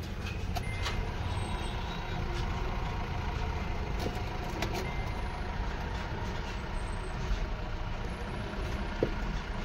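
Steady low rumble of a vehicle engine running nearby, with a few faint short beeps.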